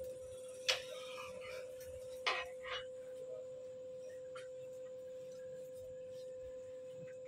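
A steady high-pitched tone, like an electrical whine, with a few faint clicks about one and two and a half seconds in.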